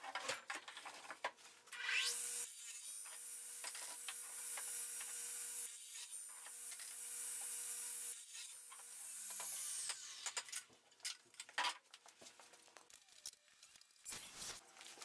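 Radial arm saw cutting PVC pipe: the motor spins up about two seconds in, runs steadily with a high whine for about six seconds, then winds down. Light knocks and rustles of the pipe being handled follow near the end.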